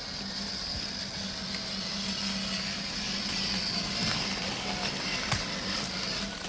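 Axial SCX10 III Gladiator RC crawler's electric motor and gearbox running steadily: a low, even hum with a high hiss over it and a few light clicks.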